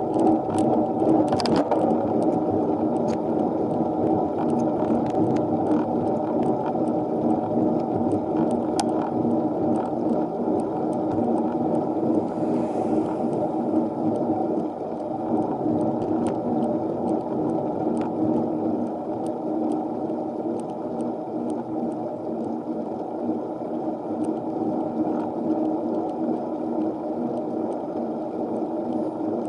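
Steady riding noise of a minivelo road bike being pedalled up a long climb, mostly low in pitch, with faint scattered ticks.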